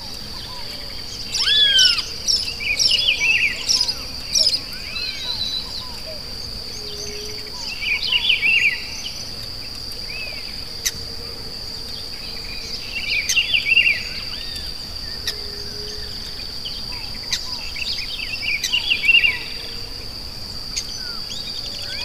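Several birds singing in short bursts of quick, arching chirps every few seconds, over a continuous high-pitched insect drone.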